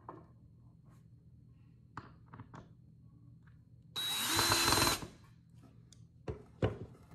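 Craftsman cordless drill driving a screw into a pine furniture panel in one burst of about a second, its motor whining steadily. Before and after it come a few light taps and knocks of the parts being handled.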